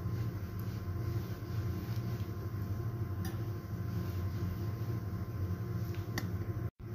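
Steady low machine hum, with a couple of faint clicks, cutting out for an instant near the end.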